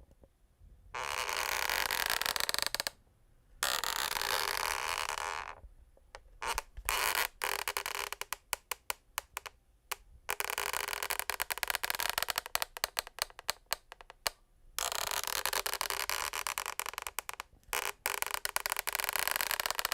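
Wooden parquet floor creaking and scraping in long stretches, with short pauses between them. In the middle the sound breaks up into rapid crackling clicks.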